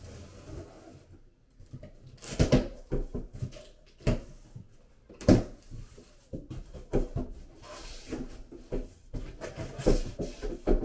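A large cardboard shipping box being opened: a blade slitting the packing tape, then the flaps pulled up and knocked about, in irregular scrapes, rustles and dull thumps.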